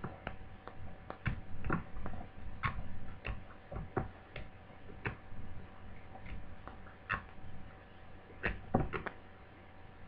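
Irregular light clicks and taps from hands working on a laptop AC adapter cable, examining an old taped repair, about two or three a second, some louder than others.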